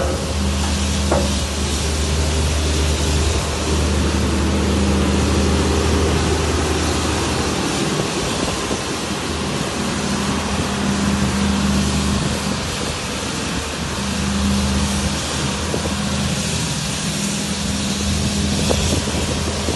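O&K RH 8.5 tracked excavator's six-cylinder Deutz diesel engine running while the boom and demolition pulverizer are worked, its low engine note swelling and easing several times.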